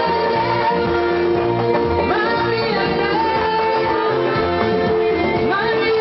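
Live music over a PA: a woman singing into a handheld microphone over the accompaniment.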